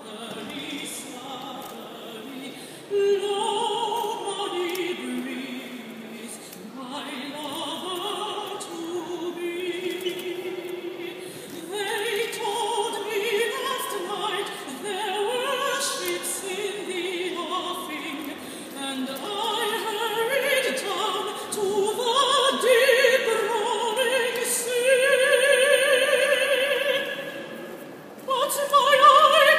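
A woman singing in operatic style, long held notes with vibrato, the line climbing higher in the last few seconds.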